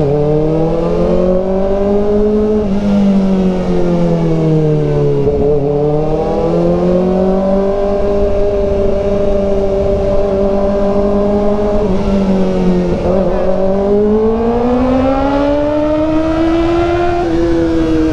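Kawasaki ZX-4RR's 399 cc inline-four engine pulling along, its pitch rising and falling with the throttle. It eases off about five seconds in and again around thirteen seconds, climbs steadily, then drops a step near the end.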